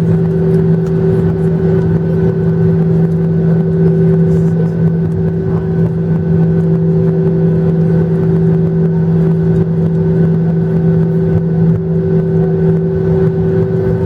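Steady drone inside the cabin of a Boeing 737-800: a rushing noise with several steady tones that hold level, neither rising nor falling.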